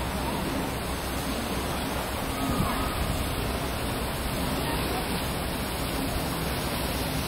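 Steady rushing outdoor background noise with no rhythm or strokes, with faint snatches of people's voices.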